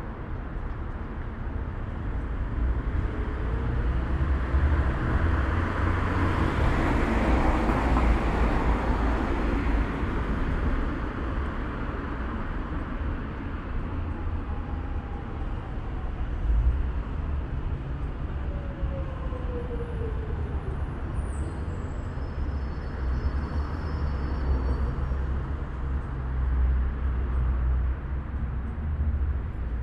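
Outdoor night ambience of distant traffic: a steady low rumble, with a vehicle passing that swells to its loudest about eight seconds in and fades away.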